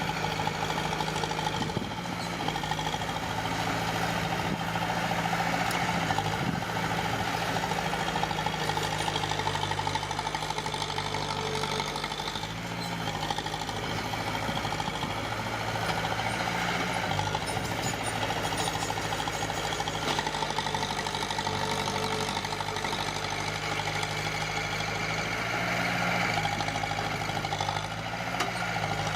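Diesel engine of heavy earthmoving equipment running steadily, its pitch stepping up and down a few times as the load or throttle changes.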